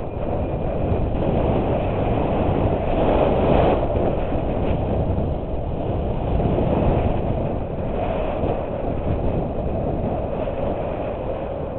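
Steady rush of wind and skis sliding over packed snow during a downhill run, picked up by a helmet-mounted GoPro camera; it swells briefly about three and seven seconds in.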